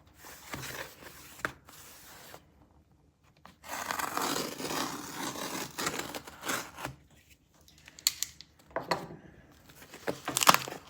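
Shipping package being cut and torn open: scratchy cutting and scraping, then a long stretch of tearing about four seconds in, with sharp clicks and rustling near the end.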